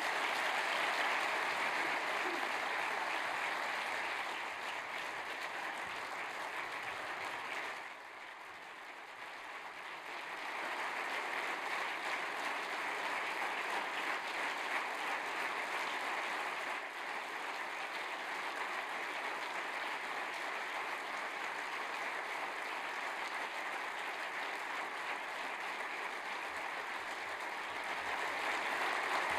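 Audience in a large hall applauding steadily; the applause thins briefly about eight seconds in and then swells back up.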